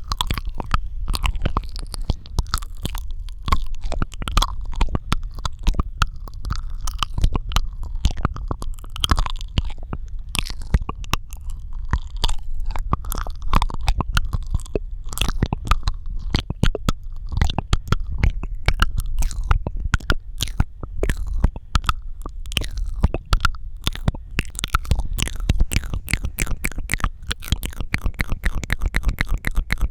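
Strong, close-miked ASMR mouth sounds: a dense, continuous run of mouth clicks and pops over a steady low rumble.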